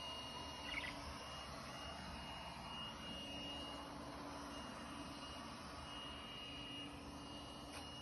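OKP K8 robot vacuum cleaner running as it moves over carpet and tile: a steady whir with a faint high whine that comes and goes. A short chirp stands out about a second in.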